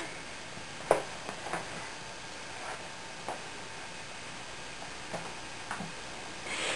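Quiet room tone with a few faint clicks and soft rustles, and one sharp click about a second in.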